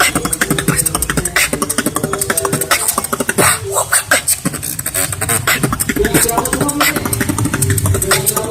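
A person beatboxing: fast, sharp mouth percussion with a hummed note underneath that stops and starts.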